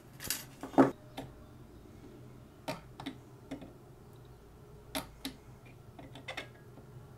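Handheld battery spot welder putting spot welds through a nickel strip onto the end of a cylindrical lithium-ion cell: a series of short, sharp clicks and snaps, several in close pairs. The loudest click comes about a second in.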